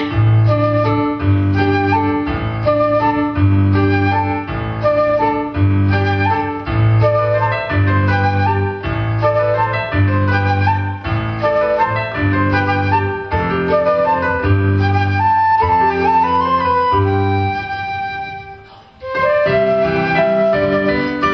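Live concert flute and electric keyboard duet: the flute plays a melody over a steady, pulsing bass line on the keyboard. Near the end the music briefly falls almost silent, then comes back in.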